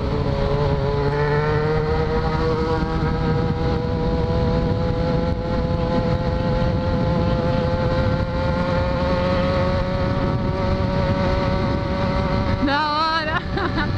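Yamaha XJ6 600 cc inline-four motorcycle engine running under way, its pitch rising slowly and steadily as the bike gains speed, over a low rumble of wind and road noise. A brief wavering, warbling tone comes in near the end.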